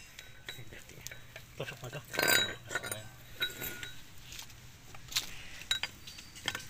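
Metal clinks and taps as steel tools and the parts of a car air-conditioning compressor's magnetic clutch (pulley and hub plates) are handled and knocked together, each with a short ring. The loudest clatter comes about two seconds in.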